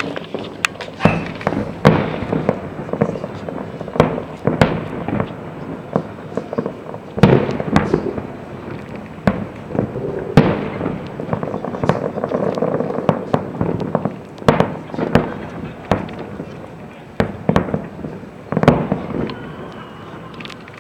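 Aerial fireworks shells bursting in quick, irregular succession. Each burst is a sharp bang followed by a rolling echo, over a continuous rumble of overlapping bursts.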